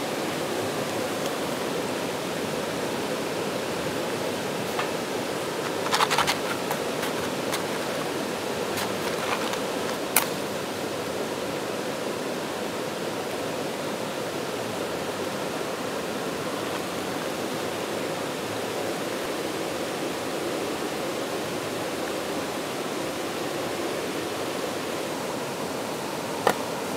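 A rocky stream running steadily. A few brief sharp clicks and knocks cut through it about six and ten seconds in and again near the end.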